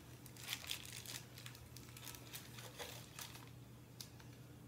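Faint rustling and crinkling with a few light clicks, from hands handling packaging and the warmer's cord, over a faint low hum.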